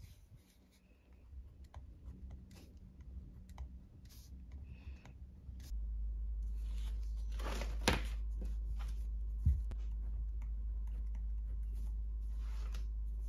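Pen writing on paper in a spiral planner: soft scratching strokes and small clicks, with a louder scratchy rustle about eight seconds in and another near the end. A steady low hum comes in about halfway through.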